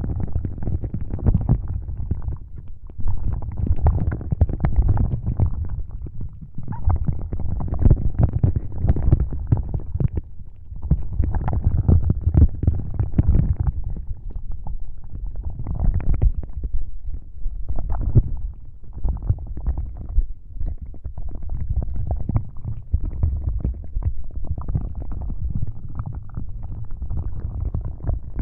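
Close-miked ASMR prop sounds: objects rubbed and brushed against the microphone, a dense, low, crackling rumble that pauses briefly every few seconds.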